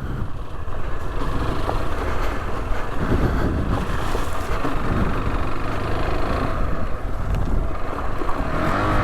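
Rieju Adventura 125's single-cylinder four-stroke engine running while the bike is ridden, heard from the rider with steady wind rumble on the microphone. The engine note rises and falls a little a few seconds in and again near the end.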